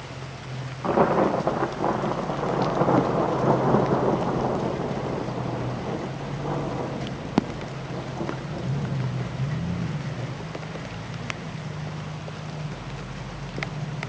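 Thunder: a sudden clap about a second in that rumbles on and fades over several seconds, with scattered sharp ticks of falling drops throughout.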